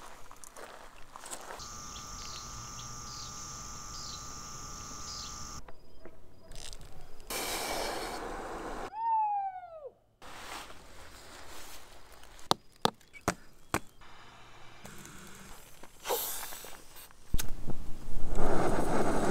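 A steady insect trill, then a single bird call that swoops downward about nine seconds in, and a run of sharp clicks. Near the end there is a click and then a loud steady hiss as a canister camp stove's burner is lit.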